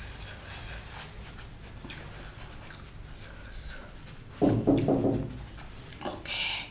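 A woman's short, loud voiced sound about four and a half seconds in, then a brief hissing breath blown through pursed lips near the end.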